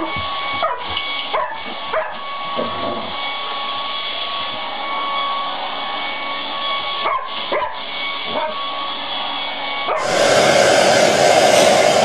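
A hair dryer running steadily, with a dog barking and yipping at it: a cluster of short barks in the first three seconds and a few more around seven to eight seconds. About ten seconds in, a louder hair dryer blowing takes over.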